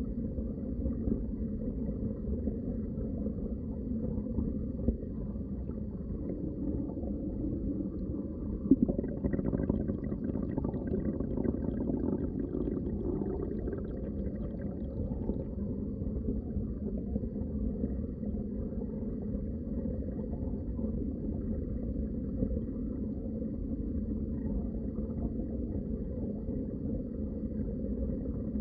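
Muffled underwater ambience: a steady low rumble of moving water, with a sharp click about nine seconds in and faint crackling for several seconds after it.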